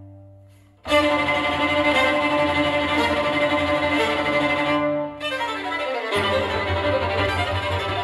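Violin-led string music played back through Cube Audio Jazzon full-range speakers driven by a 2A3 single-ended tube amplifier, heard through microphones in the room. A held chord fades almost to nothing, then the strings come in loudly about a second in with long held notes.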